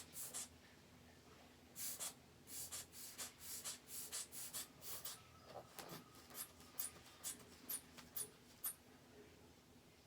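Rubber inflation bulb of a manual blood pressure cuff being squeezed in quick, soft puffs of air, about three a second, then a few slower, sharper ticks.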